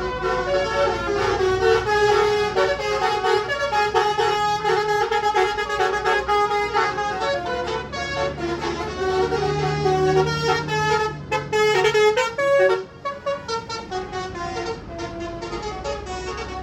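A bus's telolet musical air horn playing a tune of steady notes that step from pitch to pitch. It is loud for most of the time and drops away sharply about thirteen seconds in, with softer notes after.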